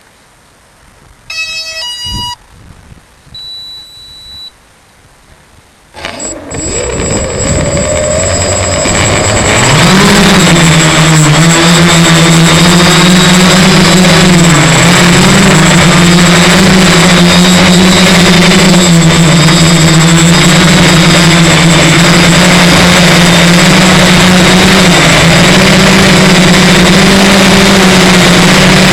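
A few short electronic beeps, then, about six seconds in, the X-copter's motors and propellers spin up into a loud steady drone with a thin high whine over it. The drone's pitch dips and rises a little as the motors change speed.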